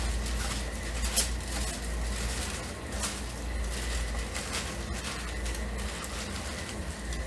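Clear plastic bag and aluminium foil crinkling in the hands, in short irregular rustles.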